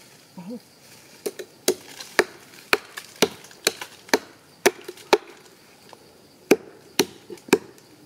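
A blade chopping into a tree trunk: a dozen or so sharp, woody chops about two a second, pausing for about a second after the fifth second before three more strikes.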